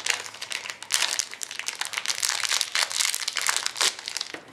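Clear plastic card bag crinkling and crackling in quick, irregular bursts as it is handled with the trading card inside.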